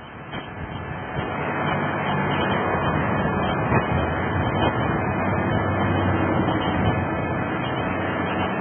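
Engine of a truck-mounted crane running steadily as it hoists a pallet of building panels, with a few knocks and clanks. The noise fades in over about the first second and a half.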